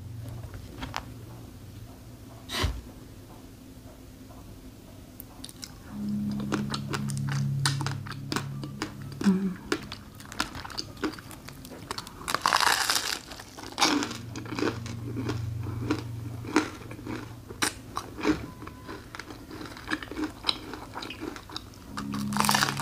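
Close-up eating of a crisp waffle filled with cream and raspberries: sharp bites and crunches of the waffle shell, then chewing clicks, with a dense run of crunching near the middle. A low hum comes and goes in between.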